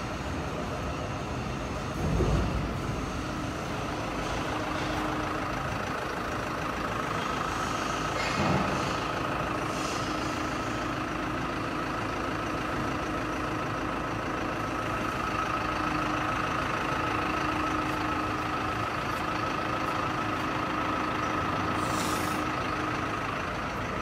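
Steady hum of machinery running in the background, with a faint held whine and a few light thumps and clanks: one about two seconds in, one near eight seconds, and a brief clatter near the end.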